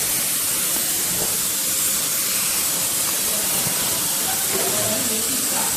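Hot air seam-sealing welder blowing a steady hiss of hot air from its nozzle.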